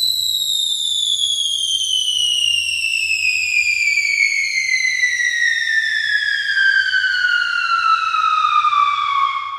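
A long falling-whistle sound effect, a single tone sliding steadily down in pitch for about nine and a half seconds over a faint low rumble, like the cartoon whistle of something dropping through the air.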